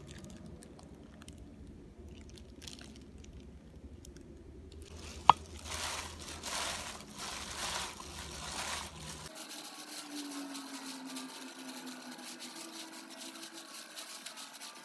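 Shredded rice paper salad being tossed and squeezed by gloved hands in a stainless steel bowl, with wet rustling and crunching as tamarind sauce is worked through it. A single sharp click about five seconds in is the loudest sound.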